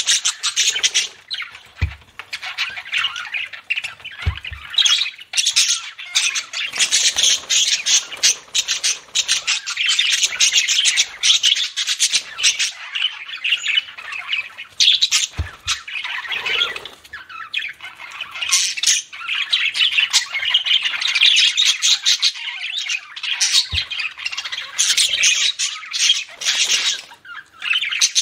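Budgerigars chattering and warbling continuously in fast, squawky, high-pitched runs, with a few faint low bumps in between.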